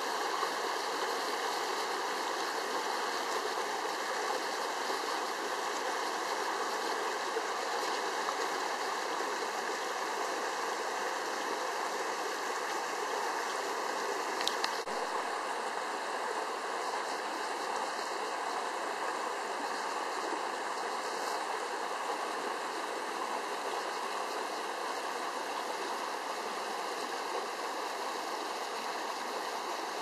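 Small mountain stream running over rocks, a steady, even babble of water. A brief click about halfway through.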